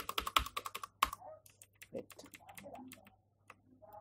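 Typing on a computer keyboard: a quick run of keystrokes in the first second, then scattered single keys.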